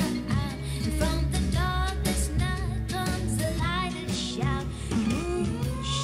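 A recorded pop song, a woman singing with vibrato over guitar, played back through small desktop speakers and picked up in the room: Creative T20 Series II speakers, switching to M-Audio AV32 studio monitors by the end.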